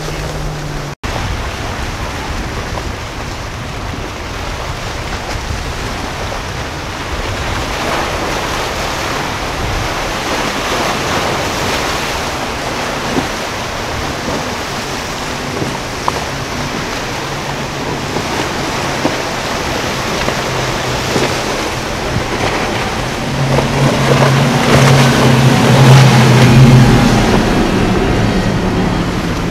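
Steady rush of choppy inlet water and wind noise, with spray from boats running through the waves. In the last few seconds the drone of a center-console boat's bank of outboard motors rises to the loudest point, then eases off.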